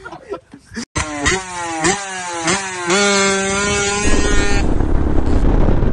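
Motorcycle engine accelerating hard through the gears, its pitch climbing and dropping back at each shift, then holding a steady high note. Near the end the engine gives way to wind rushing over the microphone.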